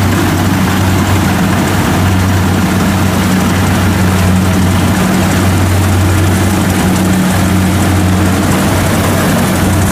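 Diesel engine of a small tracked tractor running steadily with an even low hum as the machine crawls through deep mud.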